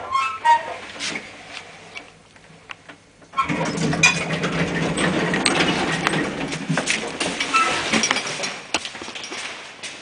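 1994 Schindler passenger lift's doors opening: the door mechanism starts suddenly about three and a half seconds in and runs loudly with a rattle for about five seconds, then dies away. A few short tones and clicks come in the first second.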